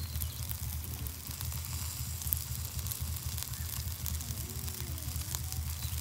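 Chicken yakitori skewers sizzling over charcoal on a small grill, a fine steady crackle and hiss of fat cooking. A steady low rumble runs underneath.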